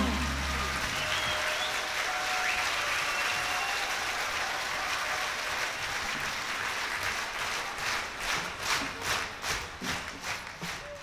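Audience applauding at the end of a live song as the last note dies away in the first second; the applause thins into scattered separate claps and fades out in the last few seconds.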